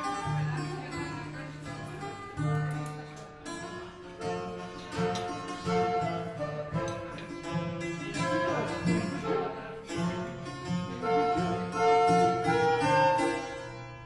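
Instrumental music led by plucked string instruments, quick runs of short notes over held bass notes.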